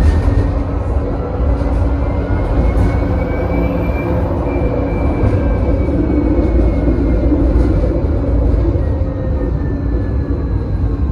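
Electric tram running along its line, heard from inside the driving cab: a steady low rumble of wheels on rail, with a thin electric whine that climbs for the first four seconds or so and then slowly falls away.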